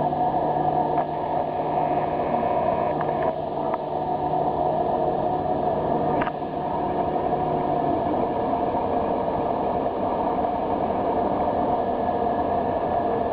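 Container crane machinery running with a steady drone while hoisting a container on its spreader. A low hum in it stops about two-thirds of the way through, and a few light clicks come in the first half.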